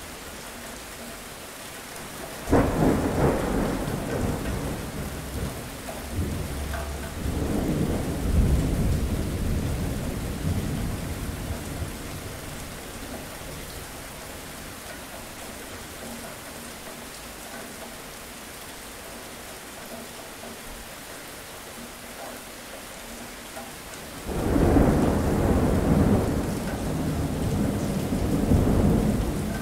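Steady rain with two rolls of thunder. The first breaks sharply about two seconds in, swells again and fades away; the second breaks sharply near the end and is still rumbling as it closes.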